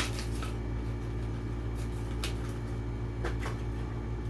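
Plastic-and-card blister packaging of a toy car being handled and opened: a few short crinkles and clicks scattered over a steady low electrical hum.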